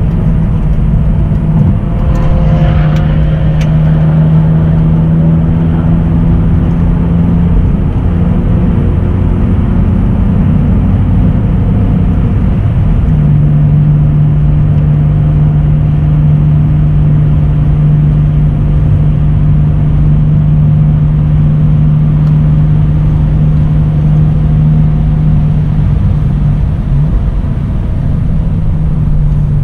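BMW 330Ci's straight-six engine pulling at speed, heard from inside the cabin over road and wind noise. The engine holds a steady note that settles slightly lower in pitch about halfway through.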